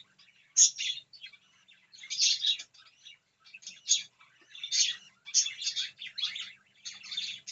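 Pet birds chirping: short, high chirps repeated in quick clusters every half second to a second.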